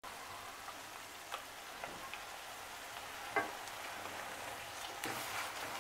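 Chopped onions frying in butter and oil in a stainless steel kadhai, a quiet, steady sizzle. A few light taps come as green paste is scraped into the pan with a spatula, the clearest about three and a half seconds in.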